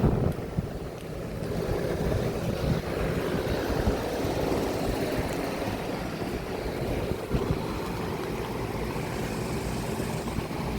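Outdoor air conditioner and heat pump condenser units running: a steady drone of condenser fans and compressors, with wind noise on the microphone.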